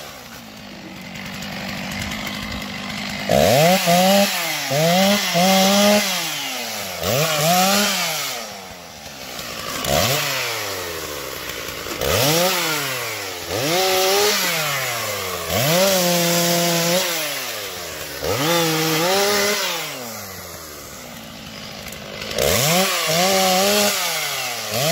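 Stihl MS 660 two-stroke chainsaw idling for about three seconds, then revving up and dropping back again and again as it cuts through branches in short bursts, once holding high for about a second.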